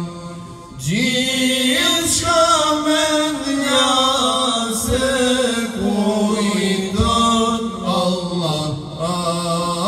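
Men singing an ilahi, an Islamic devotional hymn, a cappella into microphones, with long held notes and ornamented slides in pitch. A voice slides up into a new phrase about a second in.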